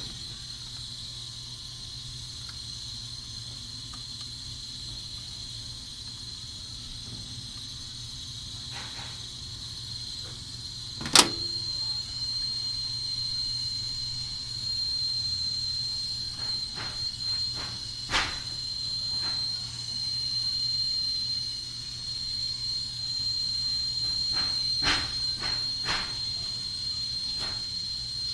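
Hand tools clinking and knocking on a seized engine coolant temperature sensor as it is worked loose: scattered sharp metal clicks, the loudest about eleven seconds in and a cluster later on. A steady high-pitched whine runs underneath.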